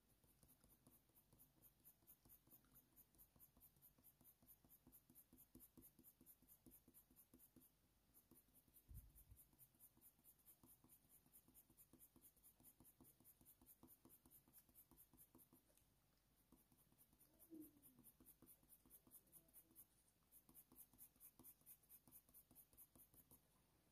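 Faint, quick short strokes of a Faber-Castell Polychromos colour pencil scratching on hot-press watercolour paper, a few strokes a second, with short pauses. There is one soft low thump about nine seconds in.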